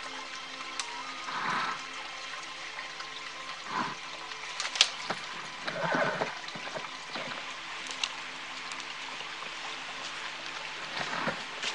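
Branches and twigs rustling and snapping under a person climbing over fallen trees, in a handful of separate crunches with one sharp crack near the middle. A steady wash of stream water runs beneath.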